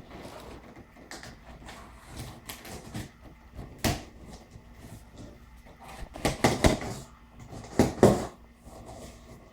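Cardboard shipping box being opened and handled: rustling and scraping with several sharp knocks, the loudest clustered about six to eight seconds in.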